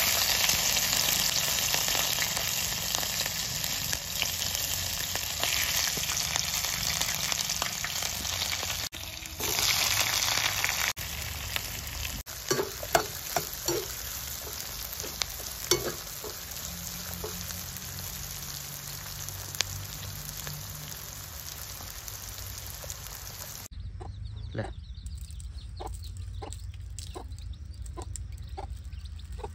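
Chopped onions, green chillies and garlic sizzling loudly as they hit hot oil in a non-stick kadai, then frying more quietly while a metal spoon stirs and scrapes against the pan. Near the end the sizzling stops and a quieter run of short, evenly spaced sounds follows.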